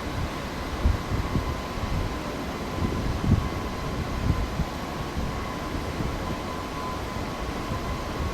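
Welding cobot running its payload-identification motion with the welding torch mounted: a steady machine hum with a faint high whine, and a few low irregular thuds, the strongest about three seconds in.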